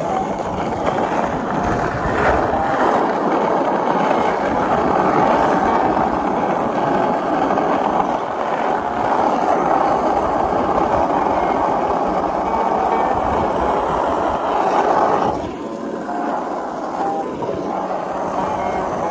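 Skateboard wheels rolling fast on rough asphalt: a steady grinding roll that drops off sharply about fifteen seconds in.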